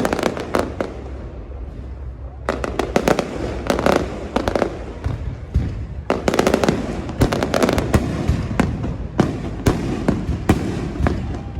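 Aerial fireworks going off: volleys of rapid bangs and crackling, in clusters a second or two long with brief lulls between.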